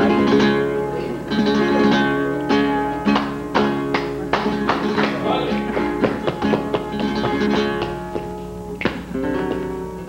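Flamenco guitar music: sharp strummed chords over held notes.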